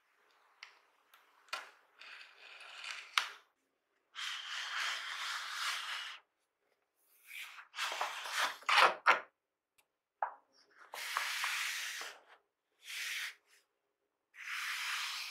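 Printed cardboard sleeve being slid off a black cardboard box: several long scraping slides of card against card, with taps and knocks as the box is handled, the loudest knocks about three and nine seconds in.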